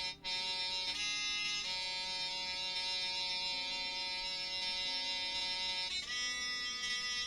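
Roland Aerophone Mini digital wind instrument playing a slow line of long held notes, with a brief break just after the start and changes of note about a second in, half a second later, and again near six seconds.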